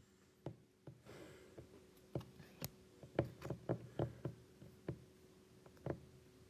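Trading cards being handled and set down on a table: a string of light, irregular taps and clicks.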